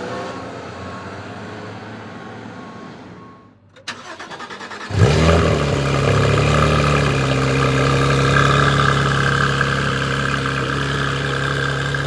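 Porsche 991 GT3 RS 4.0-litre flat-six shutting down and going quiet, then restarted: a click and a short burst of starter cranking, the engine catches about five seconds in with a loud flare and settles into a steady fast cold-start idle.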